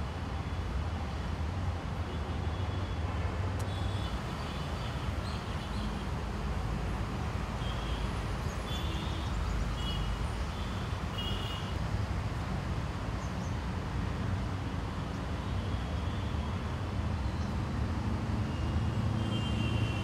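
Steady rumble of distant road traffic. A few short high chirps come through around the middle.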